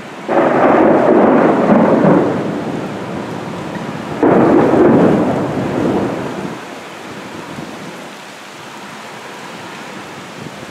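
Two claps of thunder, one just after the start and one about four seconds in, each breaking suddenly and rumbling away over a couple of seconds, over the steady hiss of heavy rain.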